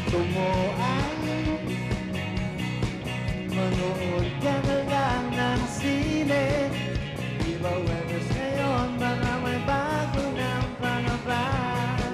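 Live rock band playing: drums, bass and electric guitars, with a bending melodic line over a steady beat.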